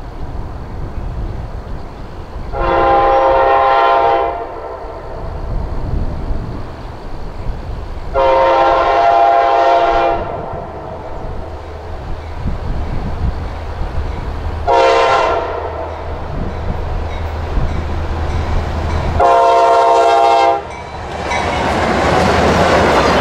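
Air horn of an approaching CSX freight locomotive sounding the grade-crossing signal: two long blasts, a short one, then a long one, over the low rumble of the diesel engines. Near the end, the loud rolling clatter of the train passing close by.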